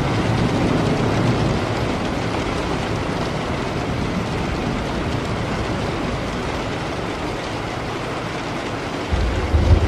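Steady rain with a low rolling rumble of thunder that eases off over the first couple of seconds. A louder thunder rumble starts near the end.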